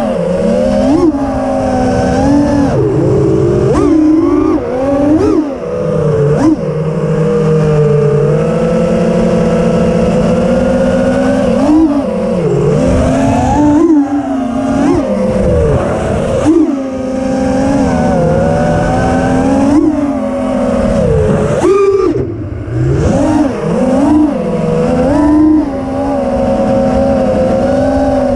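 Four brushless motors (T-motor Velox 2207.5 2550kv) of a 5-inch FPV racing quadcopter spinning Gemfan Hurricane 5143 propellers, heard from its onboard camera. The whine rises and falls constantly with the throttle, with quick sharp rises every second or two as the pilot punches out and dips between them.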